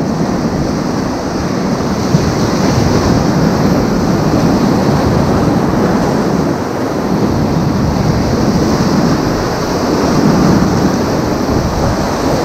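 Whitewater river rapids rushing loudly and steadily, heard from a raft running through them.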